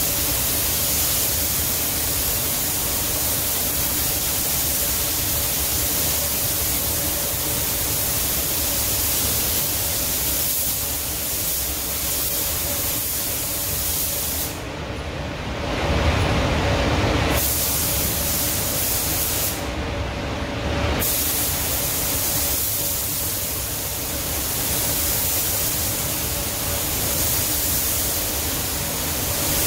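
Gravity-feed automotive spray gun hissing as it lays clear coat onto a car's rear bumper, over a steady hum from the paint booth's fans. The spray hiss stops twice about halfway through as the trigger is released, then resumes.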